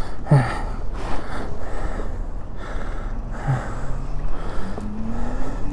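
A person breathing hard with short, sharply falling gasps or sighs, over a steady low rumble of wind and handling noise; a faint hum rises slowly near the end.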